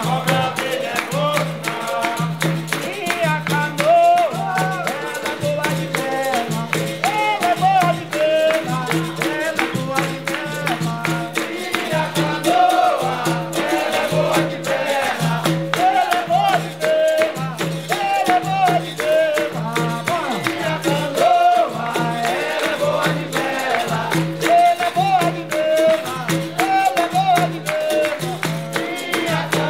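Capoeira roda music: a berimbau-led bateria with hand percussion keeping a steady low beat about once a second under group singing.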